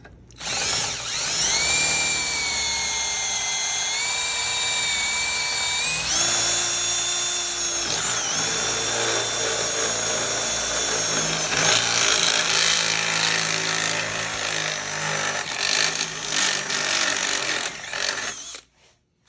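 Power drill boring a hole in a power supply's case with a step drill bit. The motor whine steps up in pitch twice early on, turns rougher and uneven in the second half, and stops shortly before the end.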